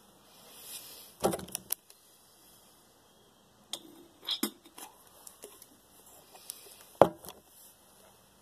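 Spitting tobacco juice from dip into a plastic bottle about four seconds in, among scattered clicks and handling noises. The sharpest click comes about seven seconds in.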